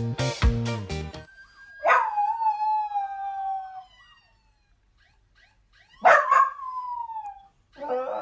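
Dachshund howling: two long howls, each starting sharply and sliding down in pitch, about four seconds apart, with a third starting near the end.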